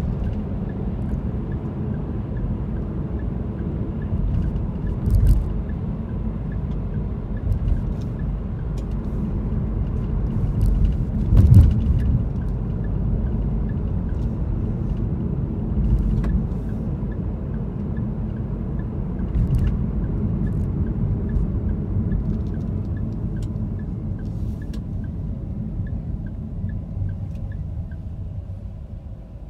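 Steady low road and engine rumble heard inside a moving car's cabin, with a few short thumps along the way. The rumble eases off near the end as the car slows toward a stop.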